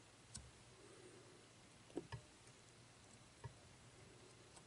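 Near silence with a few faint clicks and taps from hands handling tools and materials at the fly-tying vise, two of them close together about two seconds in.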